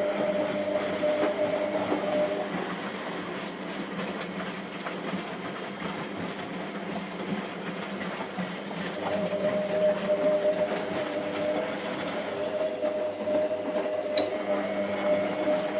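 Washing machine running, with a steady motor hum and the drum's churning noise. The motor's whine drops away a couple of seconds in and starts again about nine seconds in.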